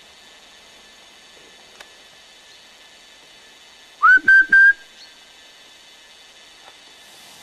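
Three quick, loud blasts on a whistle about four seconds in, the first sliding up in pitch and the other two held on one note: a handler's whistle signal to a working springer spaniel.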